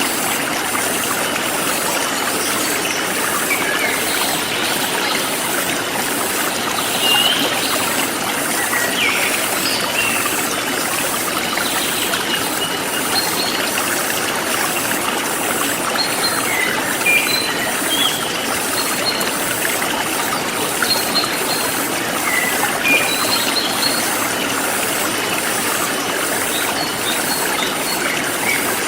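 Forest stream flowing steadily, with birds chirping now and then and insects chirping in a high, even pulse of about two a second.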